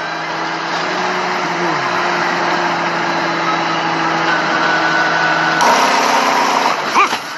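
A motor or engine running steadily, with a short falling tone about two seconds in; its pitch shifts and it grows louder and brighter about five and a half seconds in.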